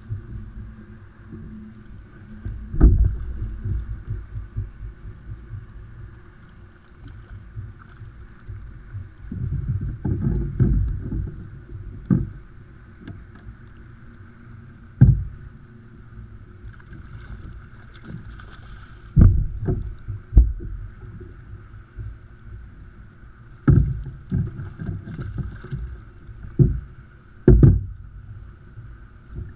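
Plastic Hobie kayak on ocean water: water sloshing along the hull with irregular knocks and thumps against it, about a dozen over the stretch.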